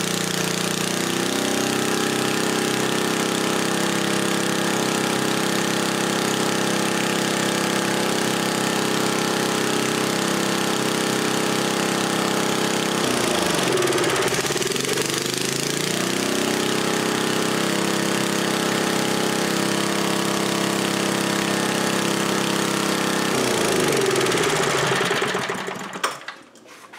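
1977 Briggs & Stratton Model 8 3 hp single-cylinder engine running steadily on its water pump, fitted with a new muffler, at a speed the owner finds a little high. Its speed dips and picks back up twice, about 13 and 23 seconds in, and it shuts off shortly before the end.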